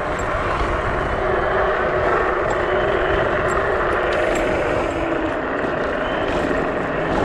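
Dual-motor electric scooter ridden at speed: wind rush on the microphone and road noise from its 11-inch off-road tyres, with a faint motor whine that rises as it accelerates and then eases. Occasional light metallic clinks come from an aluminium keyring jiggling while riding.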